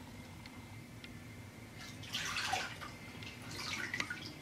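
Water splashing and streaming off a hard plastic gun case as it is lifted out of a tub of water, with drips falling back into the tub. Quiet for about two seconds, then two bursts of splashing, the second near the end.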